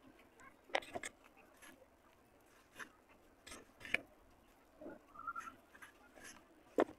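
Fingers crumbling and pressing dry lumps of red clay into a steel bowl of wet clay slurry: scattered soft crunches and crackles at an uneven pace, with one sharper crack near the end.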